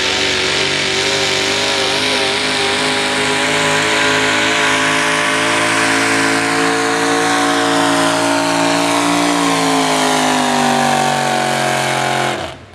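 Modified four-wheel-drive pulling truck's engine held wide open as it drags a weight-transfer sled, loud and steady, its pitch sagging slightly about ten seconds in. The sound cuts off abruptly just before the end.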